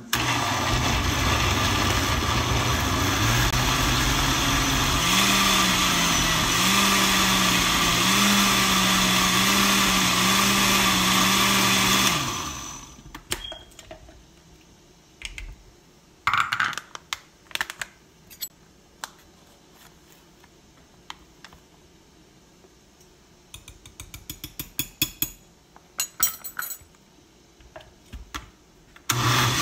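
Countertop blender running at full power while blending green juice, its motor pitch wavering and stepping up about five seconds in; it stops about twelve seconds in and winds down. Scattered light clicks and knocks follow.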